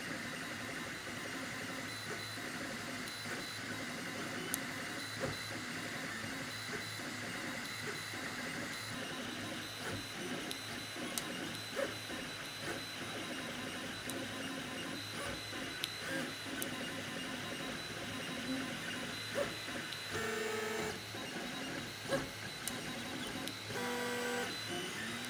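FDM 3D printer at work: stepper motors whining in shifting tones as the print head moves, over the steady hiss of its cooling fans, with scattered light ticks.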